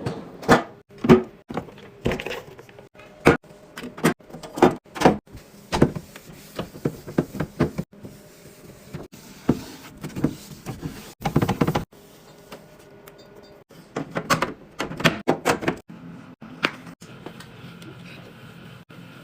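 Containers and bins being handled and set into a fridge, a rapid, irregular run of knocks and clicks that thins out near the end.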